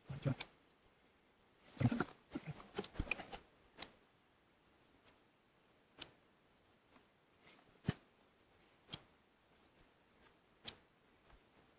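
Faint, sharp clicks of a hand-held lighter being struck, one every second or two, as the cut ends of the cord are burned to seal them. A short cluster of handling noises comes about two to three seconds in.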